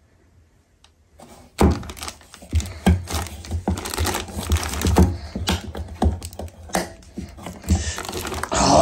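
One hand gripping and twisting the plastic screw cap of a metal tin of Rustins Danish Oil without getting it open: a run of irregular clicks, knocks and thunks as the cap is worked and the tin shifts on crinkling plastic sheeting, starting about a second and a half in.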